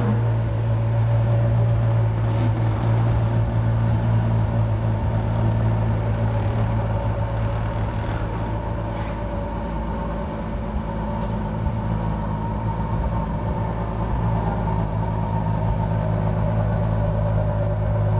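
Ferrari FF's 6.3-litre V12 idling steadily, without revs.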